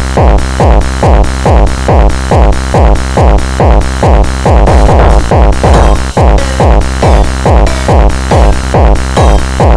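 Electronic dance track with a steady four-on-the-floor kick drum about twice a second under pulsing bass and synth layers.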